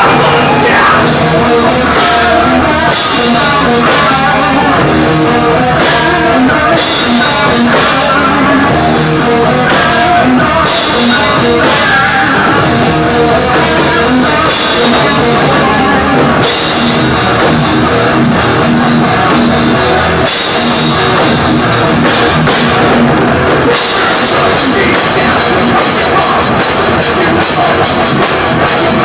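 Live thrash metal band playing loud and without a break: a drum kit with cymbals, and electric guitars.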